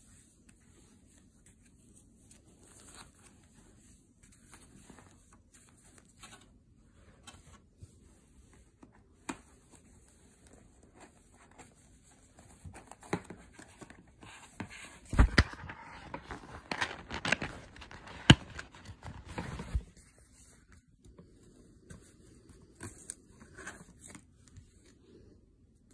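Handling of a cardboard iPod mini box and its plastic-wrapped contents: faint scattered rustling and taps, then a louder stretch of plastic and cardboard crinkling with several sharp clicks in the middle.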